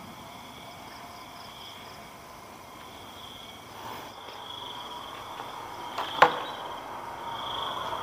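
Insects chirping steadily in a faint, pulsing high chirr. About six seconds in comes a single sharp wooden knock as an old wooden plank door is pushed open.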